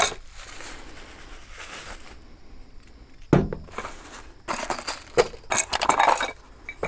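Plastic packaging bag crinkling as a small part is unwrapped by hand, then a single knock about three seconds in as the part is set down on a truck bed liner. Near the end, more rustling and light clicks as the cardboard box is handled.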